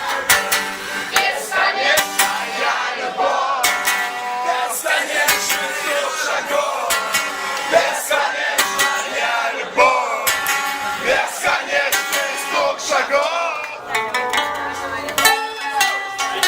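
Live band music with guitar, with a crowd's many voices singing and shouting along.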